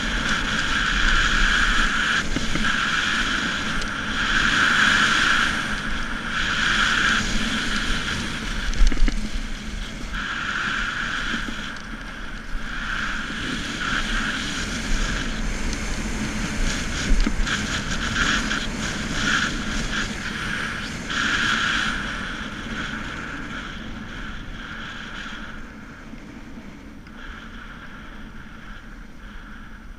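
Skis running down a groomed run: the hiss and scrape of the edges on packed snow, swelling and easing with each turn, over wind rumbling on the microphone. It grows quieter over the last few seconds.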